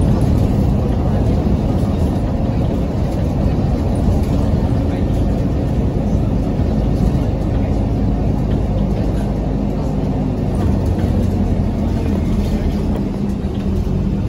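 Mercedes-Benz Citaro city bus heard from inside the passenger cabin while driving: a steady low hum from the drivetrain over road rumble.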